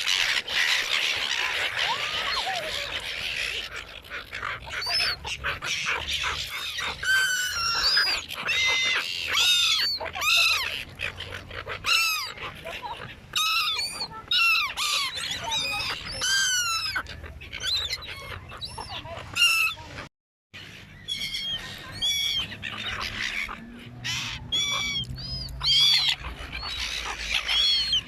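A flock of seagulls squawking and calling while being fed: many short, rising-and-falling cries overlapping one another, with a brief dropout to silence about two-thirds of the way through.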